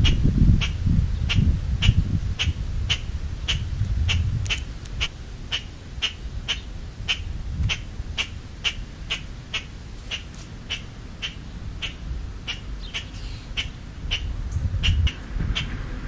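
Low rumbling knocks close to the microphone, heaviest in the first few seconds and again near the end, as a crow pecks at food scraps right beside it. An even ticking of about two or three clicks a second runs under it throughout.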